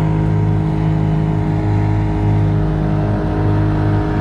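An engine running steadily at a constant speed: a low, even drone with several steady tones above it.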